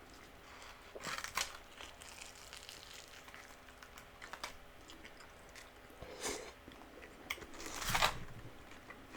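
Close-miked crunching and chewing of crispy fried chicken flautas, in a few separate bites, the loudest near the end.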